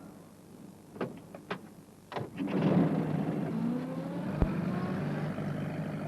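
Two sharp clicks, then a small van's engine starts about two seconds in and runs, its pitch rising as the van pulls away.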